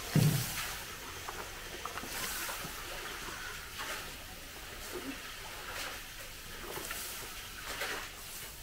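A handful of carrot strips dropped into a wide wok of hot pickling liquid, landing with a splash just after the start. Fainter intermittent patters and rustles follow.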